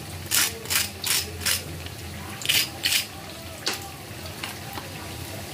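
A fork breaking into a crisp deep-fried sabudana vada (sago patty), giving a series of irregular sharp crunches and crackles that show how crispy and crunchy its crust is.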